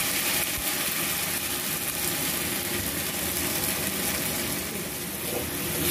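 A wet paste of ground pointed-gourd seeds and green chillies sizzling steadily in hot oil in a kadai, frying down as its water cooks off.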